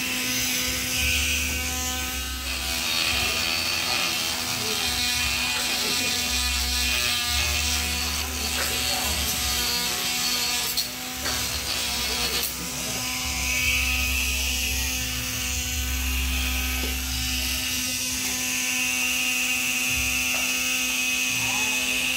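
Homemade grinder built on a 775 DC motor, running off a 12 V motorcycle battery, whining at a steady pitch throughout. Rough scraping comes and goes as its abrasive bit is pressed against a wooden handle.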